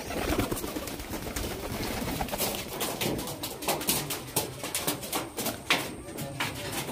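Doves cooing, with many irregular sharp clicks and knocks scattered through.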